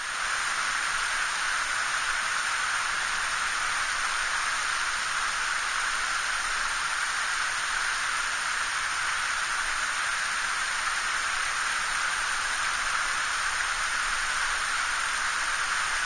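Mountain headwater stream running high after rain: a steady rushing of water that starts suddenly and then holds even.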